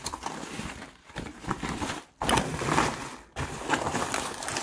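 Fabric of a parasol-base sandbag rustling as it is handled and spread open by hand, in three bouts with two short pauses.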